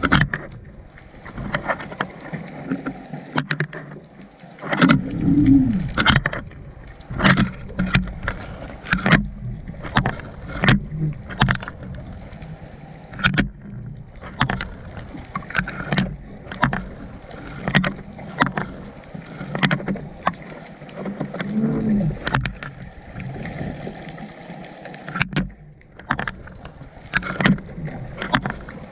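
Underwater sound through a GoPro's waterproof housing lowered on a line: a low steady hum under irregular sharp knocks and clicks, one every second or two, with a couple of short low tones that rise and fall.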